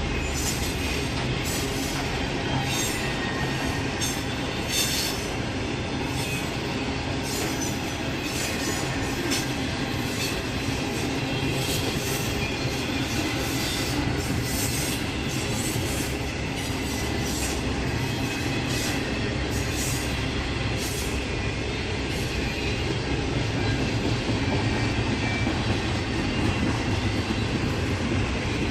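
A train's cars rolling past with a steady rumble, wheels clicking over rail joints and some wheel squeal.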